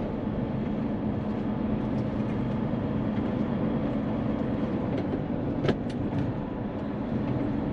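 Hino semi-tractor's diesel engine and road noise heard inside the cab while driving, a steady drone. Two brief sharp clicks come about five and a half and six seconds in.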